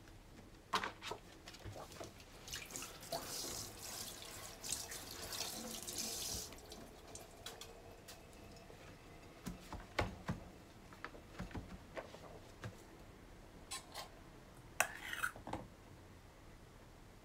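A kitchen tap runs for about four seconds, starting about two seconds in, while a sheet of rice paper is wetted for rolling. Scattered light knocks and handling sounds follow, with a short rustle near the end.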